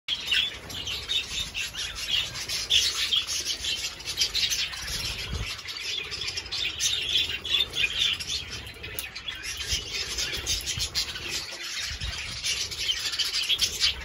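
A flock of budgerigars chattering with a continuous mass of quick, high chirps.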